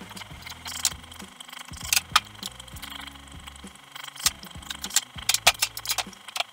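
Irregular clicks, knocks and rattles of hand assembly work on a car trailer's parts, with a cluster of sharper knocks about five seconds in.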